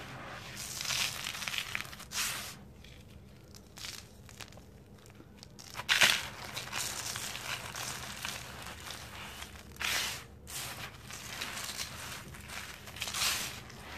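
Dried sand-and-cement lumps crushed and crumbled by hand into powder, in a series of gritty crunching bursts. The sharpest crunch comes about six seconds in.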